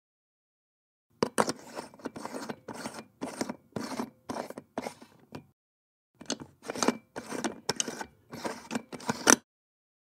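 A light bulb being twisted in its socket: short gritty scrapes of the screw base turning in the threads, about two a second. A first run is followed by a short pause, then a second run that ends in a sharp click.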